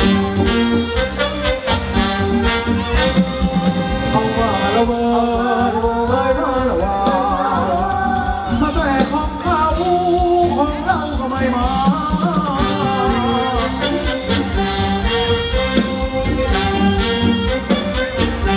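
Live Thai ramwong dance band with brass and keyboard playing upbeat dance music with a steady, driving beat, a wavering lead melody standing out in the middle.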